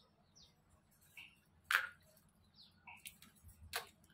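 Small live freshwater crabs handled by hand in a plastic basin of water: light splashes and clicks of shells, with a louder splash a little under two seconds in and another near the end. Short falling bird chirps come in between.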